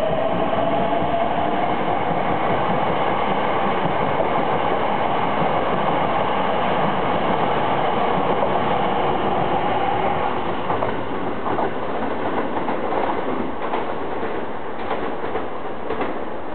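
Hankyu 9300 series electric train pulling away from a station stop. Its Toyo Denki VVVF inverter motors give a whine that rises in pitch through the first ten seconds or so as the train speeds up. After that the wheels clack over rail joints in a run of sharp beats, and the sound slowly fades as the last cars go by.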